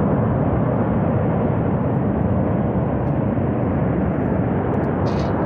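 Steady, heavy rumbling roar of a flash flood surging down a steep mountain gorge, carrying rock and debris.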